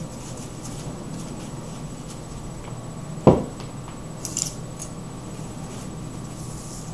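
Faint rustling of a paper towel as a penny is rubbed clean in it and the towel is crumpled, over steady room noise, with one sharp tap on the table a little after three seconds in.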